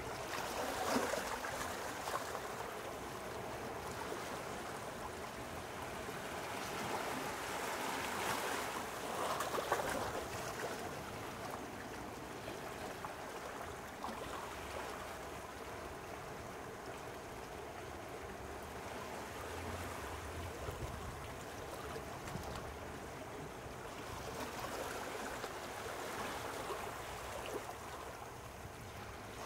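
Small sea waves lapping and washing at the shore in a steady wash of water, swelling louder about a second in, again around eight to ten seconds, and near twenty-five seconds.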